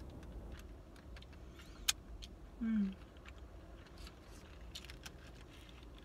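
Eating sounds of someone chewing a foil-wrapped sandwich: soft crinkles and small clicks of the foil, one sharp click about two seconds in. Just before three seconds in comes a short falling 'mm' hum, the loudest sound. A low wind rumble runs underneath.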